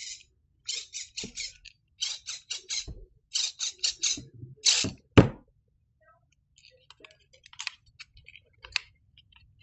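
Pills rattling inside the Pilleve dispenser's plastic pill bottle in quick groups of about four rattles, then a sharp knock about five seconds in, followed by faint clicks of handling. This is a dispense attempt in which the pill jams and does not come out.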